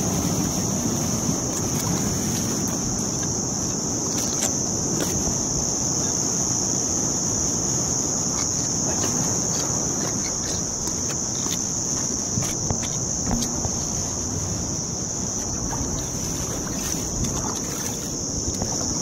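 A steady high-pitched insect drone over a rumble of wind and sea noise on the microphone; the drone stops suddenly near the end.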